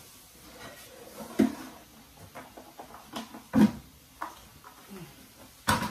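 Scattered knocks and bumps from a large plastic washing-machine outer tub half, a Kenmore Elite HE5t's, being handled and shifted around. The loudest knock comes about three and a half seconds in, with a sharp clatter near the end.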